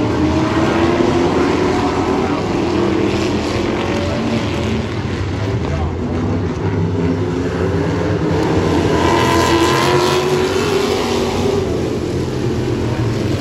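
Several vintage stock cars racing together, their engines rising and falling in pitch as they accelerate and lift for the turns.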